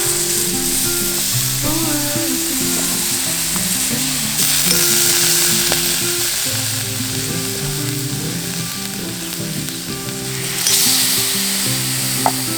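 Meat skewers sizzling on a grill, a steady hissing sizzle that swells louder twice. Background music plays over it.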